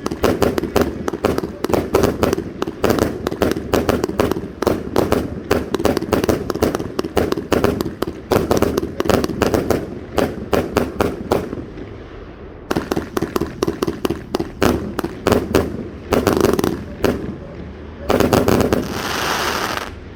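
An 82-shot Dragon Slayer consumer firework cake firing rapid volleys of shots, several a second. The volleys pause briefly about twelve seconds in, pick up again, and close with a dense burst of crackle near the end.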